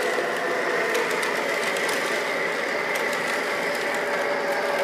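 MTH R142A O-gauge model subway train running along the track: a steady mechanical whir of motors, gears and wheels, with a faint steady whine and a few light clicks.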